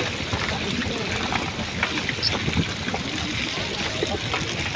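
Water trickling and splashing on a fishing boat's deck while a net full of small fish is handled, with many small scattered knocks and rustles. Men's voices murmur in the background.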